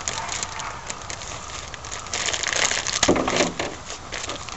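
Crackling and rustling as the new air filter and its wrapping are handled, with a louder knock about three seconds in.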